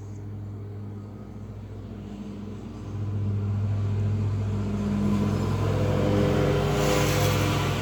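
A motor running with a steady hum that grows louder about three seconds in, with a hiss swelling near the end.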